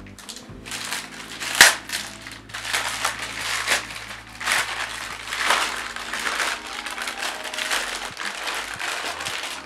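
Clear plastic packaging bags crinkling and rustling as the monitor's wrapped parts are lifted out and handled, in irregular surges, with one sharper, louder crackle about a second and a half in.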